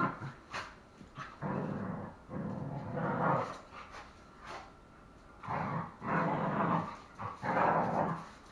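Two dogs play-fighting, growling in rough bouts of about a second each, with a few short sharp clicks between the bouts.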